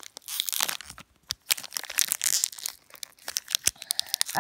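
Foil wrapper of a Pokémon card booster pack being torn open and crinkled by hand: irregular crackling and sharp crinkles, with a short lull about a second in.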